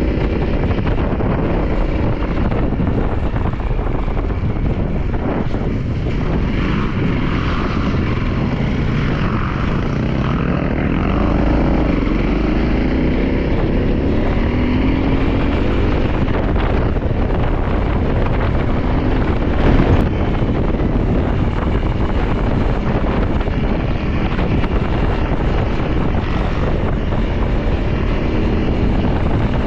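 Motorcycle engine running under way with wind rushing over the microphone; the engine note climbs as it accelerates about halfway through. A brief knock about two-thirds of the way in.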